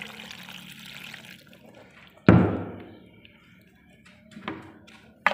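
Liquid pouring into a glass blender jar over soaked pasilla chiles, tapering off in the first second and a half. A loud thump follows a little over two seconds in, then a smaller knock near the end.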